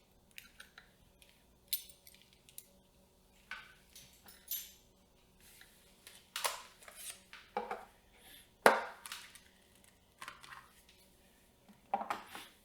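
Close-up handling of camera rigging parts being fitted together: scattered clicks, taps and short scrapes, the sharpest knock a little past the middle and a quick cluster of clicks near the end.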